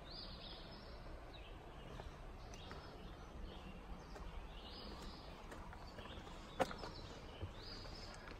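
A songbird singing short, high, repeated phrases every second or two, with a few footsteps knocking on the planks of a wooden footbridge.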